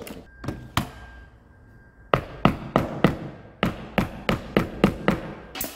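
Upholstery staples being driven through fabric into a chair seat's wooden base: two sharp clicks, then a quick run of about a dozen sharp taps, roughly three a second.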